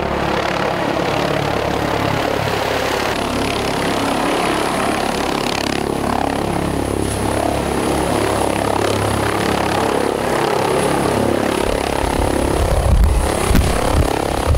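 Airbus H145 twin-engine helicopter flying close by and hovering, its rotor and turbines running steadily with a thin high whine. Near the end the low rumble grows stronger and gustier as it hovers just above the ground.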